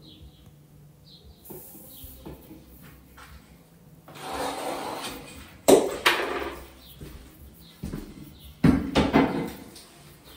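Work noises while handling tools and materials: a stretch of scraping and rubbing, then a sharp knock about halfway through and another near the end, each followed by more scraping.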